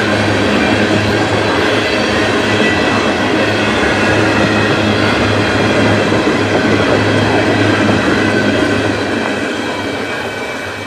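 Empty ethanol tank cars of a unit train rolling past: steel wheels running on the rail, with thin steady high squeals from the wheels. The sound starts to fade near the end as the cars draw away.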